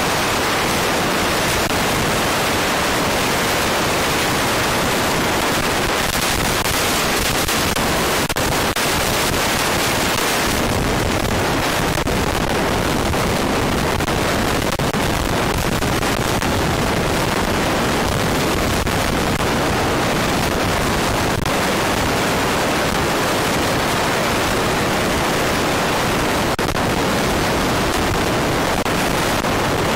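Steady, loud rushing noise with no clear pitch.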